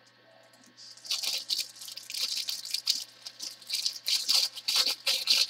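Clear plastic bags of diamond painting drills crinkling and rustling as they are handled, the small resin drills shifting inside; irregular crisp crackles start about a second in.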